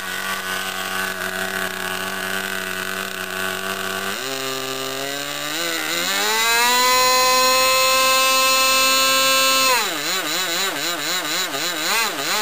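OS 46AX two-stroke model-airplane glow engine with its muffler on, idling steadily, then opened up about four seconds in to a steady high rev held for about three seconds. Near the end it is throttled back and blipped quickly up and down, the pitch wavering.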